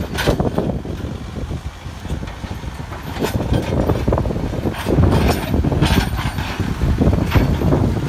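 JCB 3CX backhoe loader's diesel engine running under load as the machine drives and grades the floor of a foundation pit, with repeated knocks and clanks.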